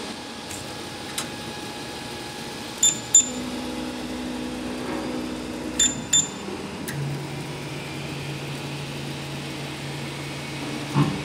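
HORI Z300 FDM 3D printer resuming its print after a power cut: its stepper motors hum at a steady pitch that drops lower about halfway through, over a steady fan whir. Two pairs of short high beeps come in the first half.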